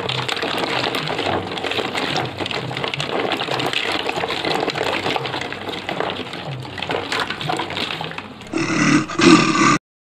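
Water sloshing and splashing as a hand stirs through a tub of water full of plastic balls and toys, with small clicks of the balls knocking together. Near the end a short, louder sound of another kind cuts in and then stops abruptly.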